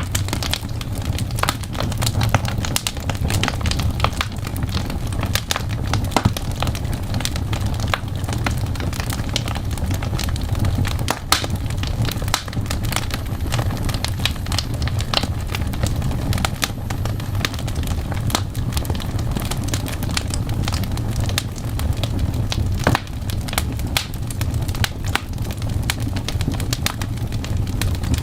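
Fireplace crackling, with irregular sharp pops over a steady low rumble.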